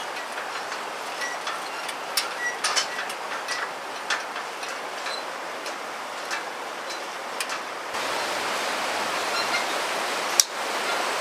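Footsteps knocking and clanking on the metal slats of a suspension footbridge, over the steady rush of a river below. About eight seconds in, the rush of water grows louder and the knocks mostly stop, with one sharp click near the end.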